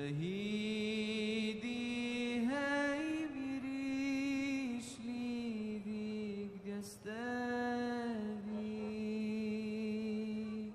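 A single voice chanting long held notes with no clear words, sliding slowly up and down in pitch in the manner of a religious chant. It starts abruptly and breaks off at the end.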